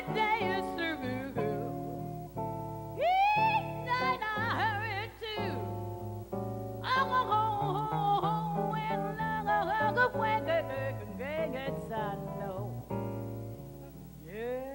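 A woman's jazz vocal improvisation, wordless scat-style phrases with bending, wavering runs, over a hollow-body archtop jazz guitar playing chords and walking bass notes.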